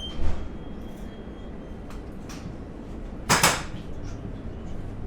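Sliding doors and fittings of an Ivolga electric train carriage knocking shut: a short clunk just after the start and a louder one about three seconds in, with a few lighter clicks, over the low hum of the standing train.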